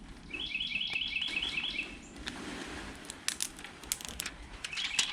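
A bird chirping in a fast run of identical high notes, about eight a second, for over a second, then again briefly near the end. In between, a few sharp clicks of small hard objects being handled.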